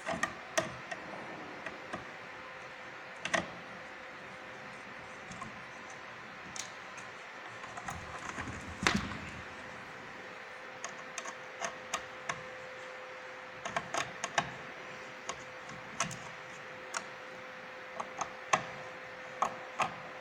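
Irregular clicks and taps of hands and tools working on a light-fixture ballast and its parts, with one louder clattering knock about nine seconds in, over a faint steady hum.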